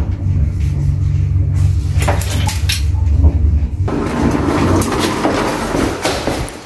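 Passenger lift running with a steady low hum and a few clicks. About four seconds in the hum stops and a broader rustling noise takes over as the lift doors open.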